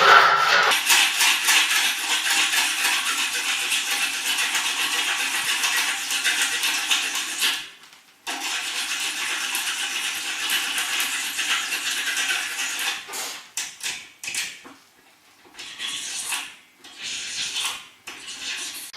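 Hand file rasping back and forth on a metal door latch bolt, filing down its back to change the angle so it will catch in the keep. Long continuous filing, a brief stop about eight seconds in, then more filing that breaks into shorter strokes near the end.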